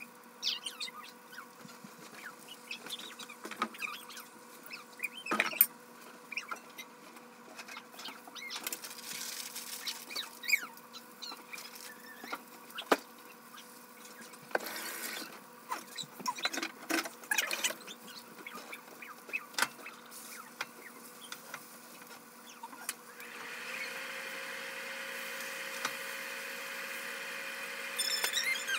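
Kitchen handling sounds while assembling tacos at the stove: scattered clicks, taps and brief rustles of utensils, tortillas and food packaging over a steady background hum. About 23 seconds in, a louder steady hum starts and keeps going.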